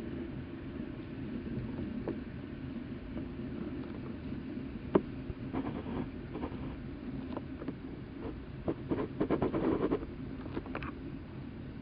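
Plastic tri-spinner fidget toy handled and spun, giving a steady low whir. There is a sharp click about five seconds in and a quick run of clicks and taps near nine to ten seconds.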